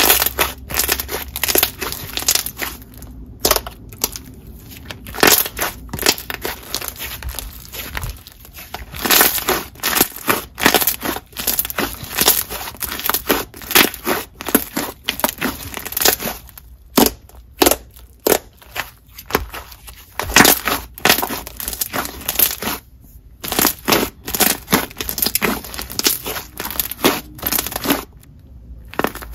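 Glossy clear slime with a little clay mixed in, squeezed and kneaded by hand, giving rapid runs of sharp bubble pops and clicks with a few short pauses.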